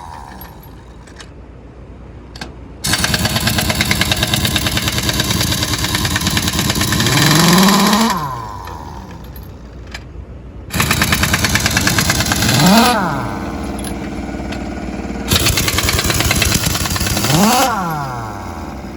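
Impact wrench hammering rapidly on a truck's wheel nuts in three long bursts. Each burst ends with the tool's whine rising as it spins free, then falling away as it is released.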